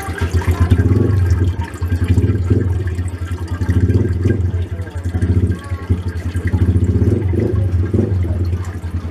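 Water pouring and splashing into a freshwater aquarium: a loud, steady gurgling rush that swells and dips.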